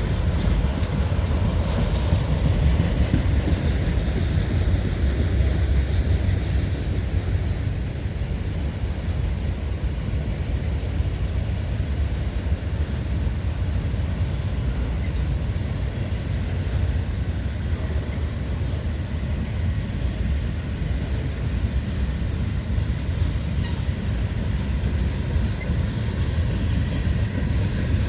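Freight train cars rolling past on the rails: a steady low rumble of wheels on track that holds throughout.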